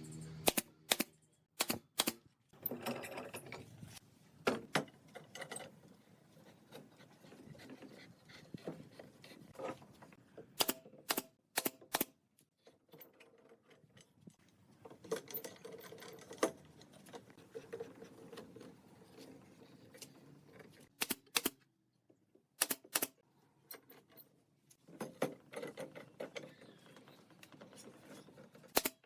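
Hand work on wood: sharp taps and knocks at irregular intervals, some in quick pairs, between stretches of scraping and rubbing.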